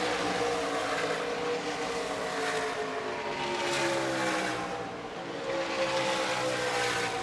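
NASCAR Truck Series race trucks' V8 engines running at speed on the track in practice, the engine pitch sliding slowly down as they pass; a second pass-by comes in about five seconds in.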